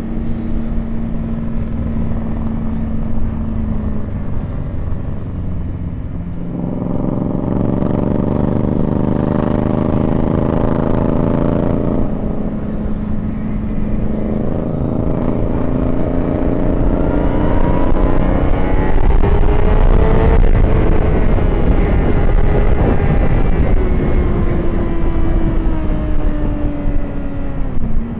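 Suzuki GSX-R600 sportbike's inline-four engine under way, shifting up through the gears: the revs climb and step down at each shift. In the second half the revs rise steadily for several seconds, then slowly fall as the throttle eases. Wind rushes over the microphone throughout and is loudest while the revs are at their highest.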